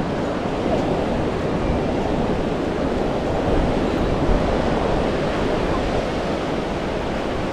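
Surf washing onto a beach as a steady, even rush of water noise, swelling slightly a few seconds in.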